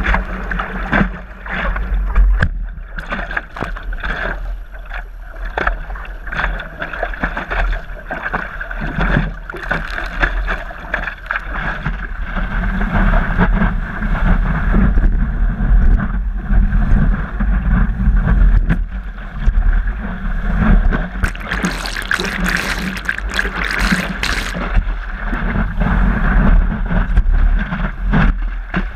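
Water splashing and slapping against the nose of a stand-up paddleboard running downwind through choppy water, with wind buffeting the microphone in a steady low rumble. The spray is heaviest and hissing brightest a little past two-thirds of the way through.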